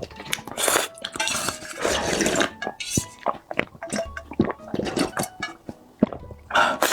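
Kitchen handling sounds: dishes and utensils clinking in many sharp clicks, with several short wet, splashing bursts of liquid.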